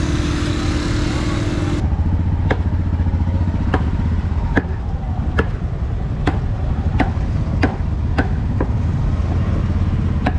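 Steady, even chopping with a cleaver, sharp knocks about three every two seconds, starting about two seconds in. Under it runs the steady low hum of an engine running. A loud hiss in the first two seconds cuts off abruptly.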